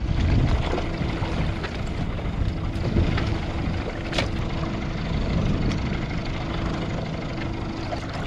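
Outboard motor idling on a drifting fishing boat, a steady hum under rumbling wind noise on the microphone, with a few faint clicks.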